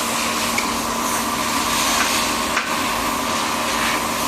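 Lathe running steadily while cutting a thread on a long rod: a constant hum and whine over a hiss, with a few faint ticks.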